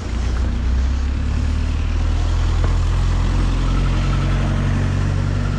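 Motor vehicle engine running steadily at low road speed, a low hum that strengthens about a second in.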